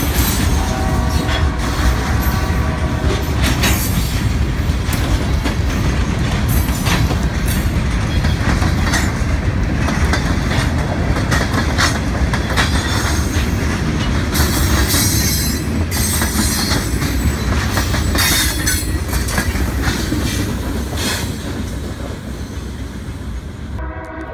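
Freight train of hopper and tank cars rolling past close by, the wheels clacking and banging over the rail joints in a steady loud run. The noise eases off over the last few seconds.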